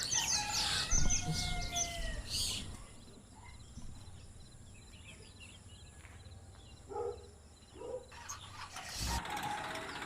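Birds chirping and calling outdoors, busiest in the first couple of seconds and then sparser, with a short knock about nine seconds in.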